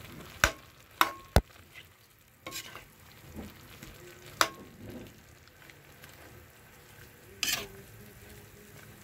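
Spatula stirring ground pork and broccoli in a frying pan, knocking and scraping against the pan several times over a faint sizzle.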